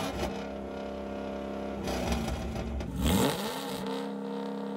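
Ford 4.6-litre V8 from a Crown Victoria, revved in park: it climbs quickly and then holds flat at about 4,000 rpm against Ford's factory neutral/park rev limiter. It drops off a little under two seconds in, is revved again about three seconds in, and holds at the same pitch.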